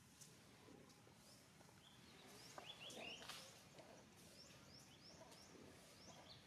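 Faint outdoor ambience with many short, high, rising chirps and squeaky animal calls, loudest in a cluster about three seconds in.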